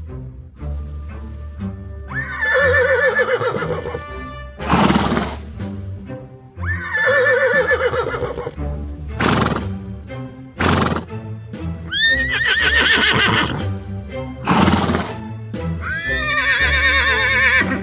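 Recorded horse neighs played as sound effects over steady background music: four whinnies a few seconds apart, each with a quavering, shaking pitch, with short noisy bursts between them.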